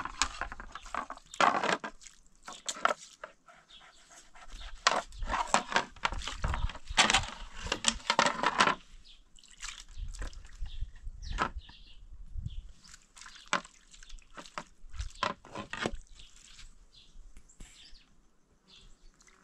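Dishes being washed by hand: water poured and splashed over plates, with scrubbing and irregular clinks and knocks of plates and spoons. The water sounds are densest for a few seconds near the middle.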